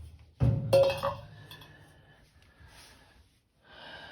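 Metal parts clanking and clinking during hands-on repair work: two sharp knocks with a short ring, then fainter handling noise.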